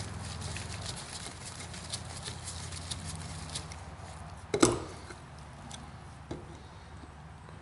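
Hand tools clicking and tapping on the metal cover bolts of a tractor steering box, with one sharper metal clank a little past halfway and a lighter knock later. A low steady hum runs underneath.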